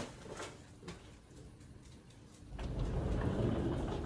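Household movement noises: a few faint clicks, then a low rustling rumble for about a second and a half, ending in a sharp knock.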